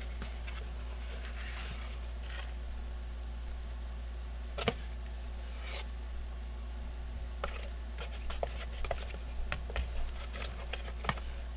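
Dry plaster of Paris being put into a glass bowl: scattered taps, clicks and rustles of the box and bowl being handled, with one sharp knock a little before halfway and a run of quick taps and clicks in the second half. A low steady hum lies underneath.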